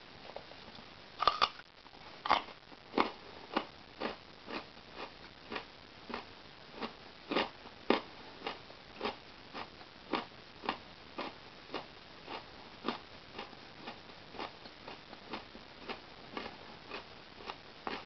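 European hornet chewing with its mandibles, a run of crisp clicks about twice a second, some much louder than others.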